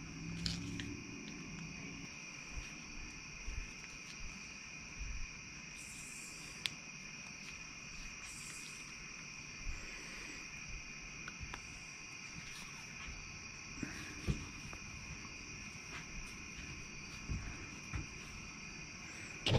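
Steady high chirring of insects, with faint scattered clicks and knocks from a CV axle joint and its rubber boot being handled and fitted.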